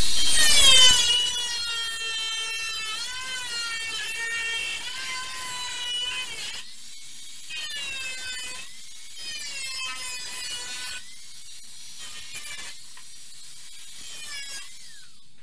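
Angle grinder cutting along the edge of a bent sheet-metal part. Its high whine sags in pitch each time the disc bites and recovers as it eases off, breaks off briefly a few times, and winds down near the end.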